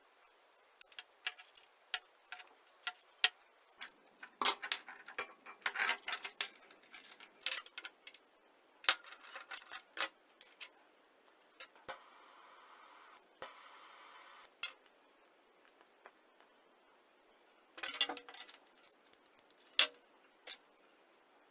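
Small hard parts and tools being handled: irregular clicks, taps and clatter, with a short steady hiss about twelve seconds in lasting nearly three seconds.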